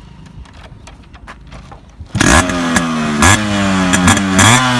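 Yamaha RX100 two-stroke single-cylinder motorcycle engine starting about two seconds in and then revved in about three quick blips, the pitch rising and falling back each time.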